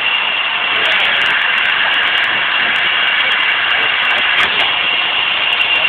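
Steam locomotive No. 186, an ex-GS&WR J15-class 0-6-0, letting off steam with a loud, steady hiss.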